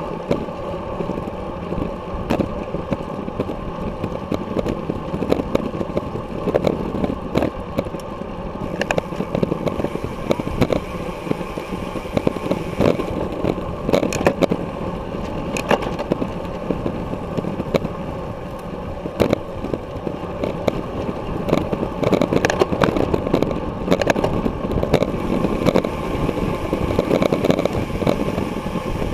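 Wind buffeting and road rumble picked up by an action camera mounted on a road bike riding at criterium pace over concrete pavement, with frequent sharp clicks and rattles throughout.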